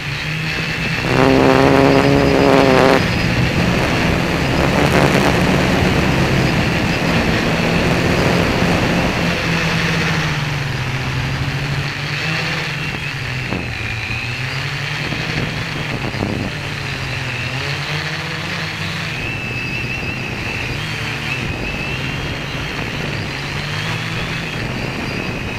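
Motor and propeller of a radio-controlled model aircraft heard from its onboard camera: a steady buzzing drone with a high whine, its pitch rising and falling with the throttle. It is loudest for about two seconds shortly after the start.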